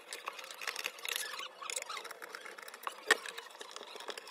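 An Allen key loosening the small screws on an LED street light's metal housing: scattered small metallic clicks and scrapes as the key and screws are worked and the fitting is handled, with one sharper click about three seconds in.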